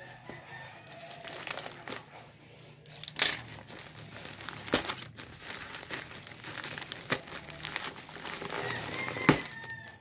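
Plastic courier mailer pouch being slit with a utility knife and torn open by hand: continuous crinkling of the plastic, broken by four sharp snaps.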